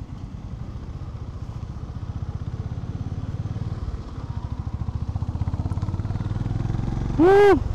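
Honda H'ness CB350's air-cooled single-cylinder engine running under way, easing off briefly about four seconds in and then pulling again. Near the end comes a short horn beep, the loudest sound.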